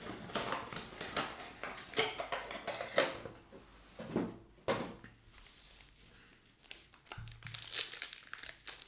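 Trading-card pack wrapper crinkling and tearing as it is handled and opened, with scratchy rustles that grow denser near the end.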